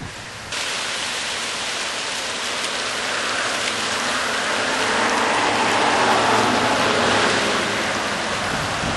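Steady rain, a dense hiss that starts abruptly about half a second in and grows louder toward the middle.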